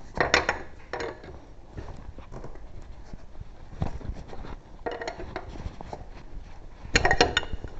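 Scattered light clinks and knocks of hand tools and small hardware being handled, with a short cluster of clatter near the end.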